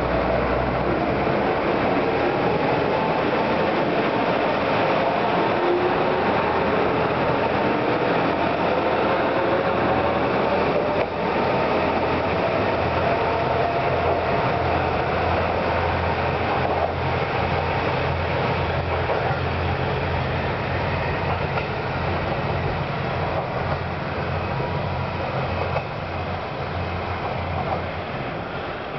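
JR Kyushu KiHa 125 diesel railcar pulling out. Its engine and transmission whine rises in pitch over the first ten seconds or so as it accelerates away, with a steady low diesel hum underneath that fades slightly near the end.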